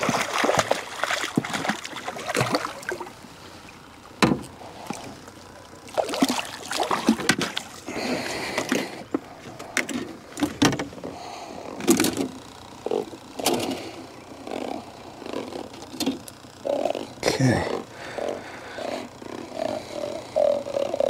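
Fish splashing at the water's surface beside an aluminum jon boat, followed by repeated knocks, clicks and rattles of fishing gear and a fish being handled against the aluminum boat.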